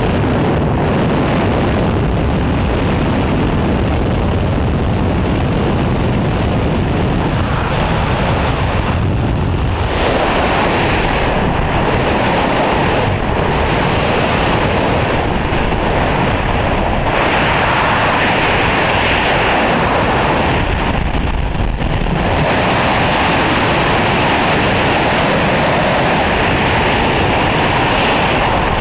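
Freefall wind rushing loudly over an action camera's microphone during a skydive, with the tone shifting several times as the airflow over the falling jumper changes. The opening seconds are the slipstream at the open door of the jump plane.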